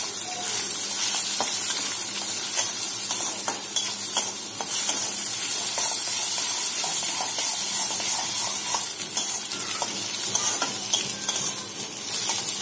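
Egg scrambling in hot oil with onion and green chilli in a steel kadai: a steady sizzle, with a metal spatula stirring and scraping against the pan in many quick light clicks.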